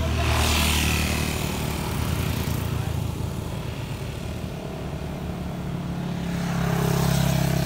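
Road traffic going by close: the engines of a small truck and motorcycles, with a rush of noise as vehicles pass just after the start and again near the end. A steady engine drone builds over the last couple of seconds.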